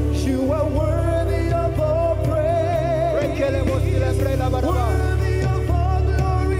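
Gospel worship music: a singer's wavering, sustained voice over a band with a heavy, steady bass.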